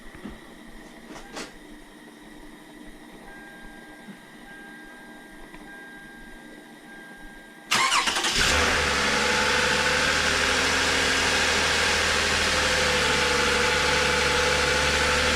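2007 Toyota Camry engine starting up about eight seconds in, after a few faint clicks, catching at once and settling into a steady idle. It runs with a newly replaced ignition coil pack, which seems to have fixed its rough running.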